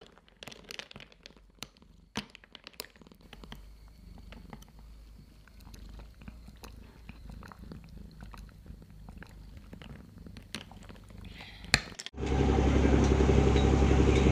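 A metal spoon stirring whipped dalgona coffee in a glass tumbler: scattered clinks of the spoon against the glass over a low swishing rumble. About twelve seconds in it cuts abruptly to the loud, steady drone of a harbour boat's engine.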